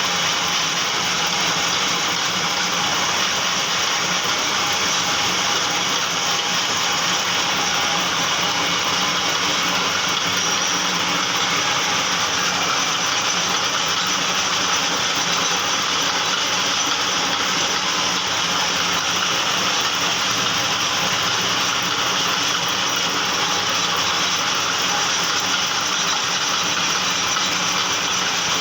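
Metal lathe running steadily, a constant machine hum with a dense hiss over it.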